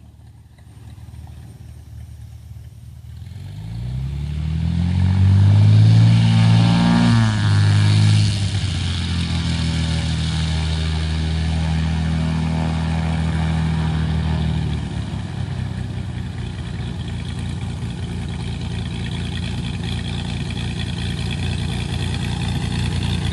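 Cessna 206 aircraft engine running: quiet at first, then rising in pitch and loudness a few seconds in, with a brief sharp dip in pitch. It runs steadily before easing slightly lower about fifteen seconds in.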